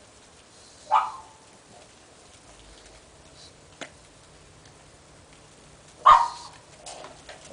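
Pug barking twice, about five seconds apart, the second bark slightly louder, with a faint click between them.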